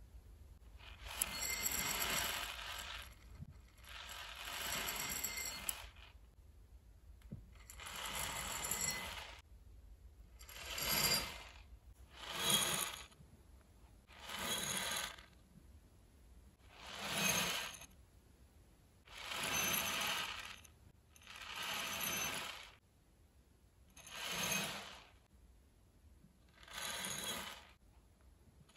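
Plastic fuse beads pouring and rattling against glass jars and the tabletop, in about eleven separate bursts of a second or two each, with quiet gaps between.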